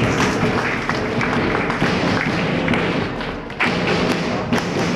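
Audience applauding: dense clapping that dips briefly about three and a half seconds in, then picks up again.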